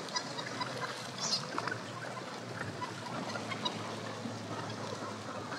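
A large flock of seabirds, gannets among them, feeding over a bait ball: many short, harsh calls scattered over a steady wash of water and wind.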